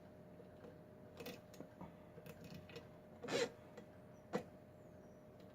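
Faint metallic clicks and scrapes of a pick working the pins inside a Kwikset pin-tumbler lock, with a louder click a little past three seconds in and a sharp one about four seconds in.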